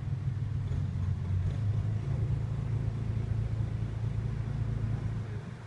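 Canal workboat's engine running steadily under way, a low even rumble that eases slightly near the end.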